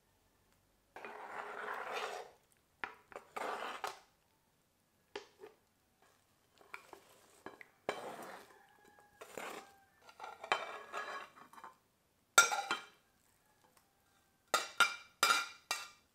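Cutlery scraping and clinking against a dish in short, irregular bursts, with a few sharp ringing clinks about twelve seconds in and a quick run of four near the end.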